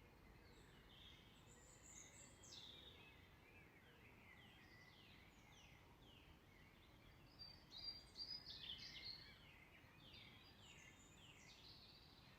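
Faint birdsong from several songbirds: many short, quick falling whistled notes, with a louder run of song about eight seconds in.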